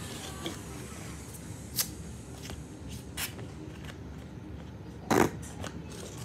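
Scattered handling noises: a few light clicks and short rustles over a low steady background, the loudest a brief scraping rustle about five seconds in.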